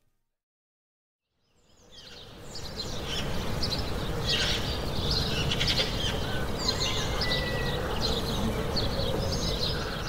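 Recorded outdoor ambience opening a country song: after a second or two of silence, many small birds chirping fade in over a steady low rumble.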